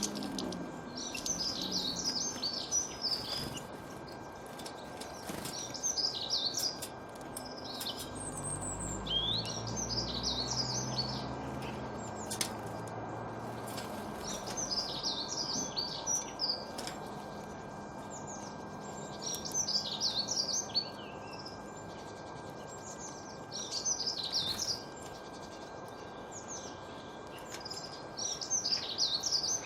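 A songbird singing the same short phrase of quick high notes over and over, about every four seconds, over a steady background hiss. A low rumble passes briefly about a third of the way in.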